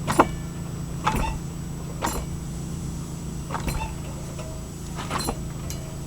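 Clunks from the drivetrain of a 2000 Honda CR-V as its jacked-up front passenger wheel is turned back and forth by hand. The noise comes from the differential, which the owner takes for the source of a noise heard when driving. About six sharp knocks come at uneven intervals over a steady low hum.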